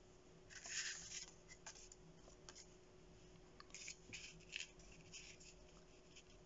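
Faint, short rustles and scrapes of paper and cardstock being handled, as a die-cut paper piece is slid into place on a card base.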